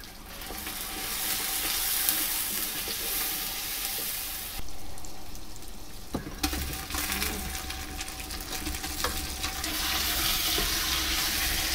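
Onions frying in oil in a cast-iron potjie over a wood fire, a steady soft sizzle, which is the sign that the pot is at the right heat for browning. There is a short knock about six seconds in.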